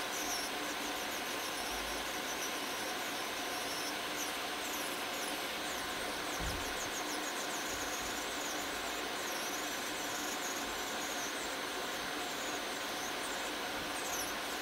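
Electric nail drill running steadily as a round grinding bit scales down a thick, fungus-infected toenail, with a high whine that wavers in pitch.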